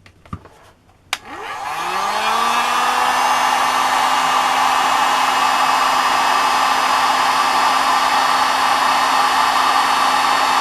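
Electric hot-air blower used to shrink heat-shrink tubing over a wire splice: it switches on with a click about a second in, its fan motor spins up with a rising whine, then runs steadily with a loud rush of air.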